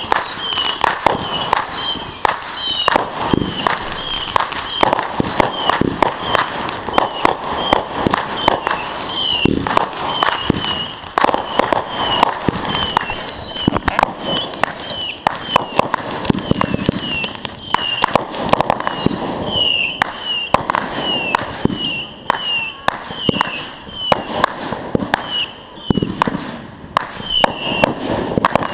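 Fireworks going off in quick succession: a dense run of sharp cracks and bangs. Short high chirping tones recur about once a second over them.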